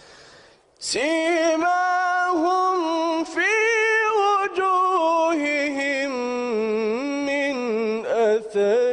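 A male reciter's voice in melodic Quran recitation, drawing out a long, ornamented phrase with wavering held notes. It starts about a second in after a brief pause, with only short breaks for breath.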